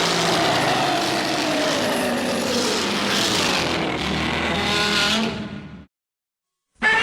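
A long monster roar sound effect for an adult Minilla, mixed from Godzilla and dinosaur roars, with a wavering, drawn-out pitch. It cuts off abruptly about six seconds in, and a second roar starts right at the end.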